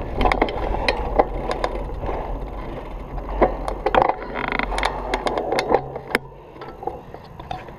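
Mountain bike rolling over a dirt trail: a steady rumble of the tyres with frequent sharp clicks and rattles from the bike over bumps. It slows and comes to a stop about six seconds in, after which it is much quieter.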